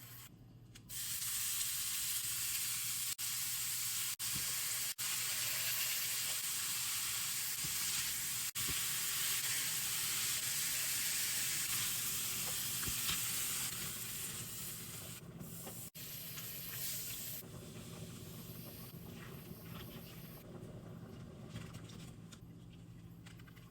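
Food sizzling and frying in a hot pan, loud and steady for most of the stretch and softer from about fourteen seconds in, with a few brief dropouts.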